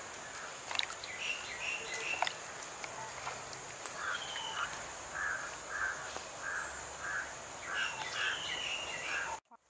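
Rural outdoor ambience: a bird giving a run of short repeated calls, about two a second, over a steady high insect drone, with a few faint clicks of hands handling wet leaves. The sound cuts out abruptly near the end.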